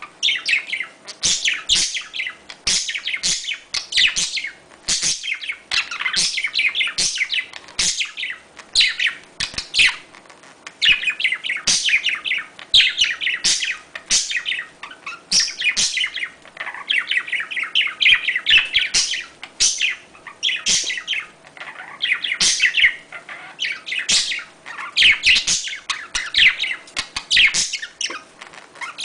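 Budgerigars chirping and warbling in continuous rapid bursts, the chattering song of budgies in breeding condition.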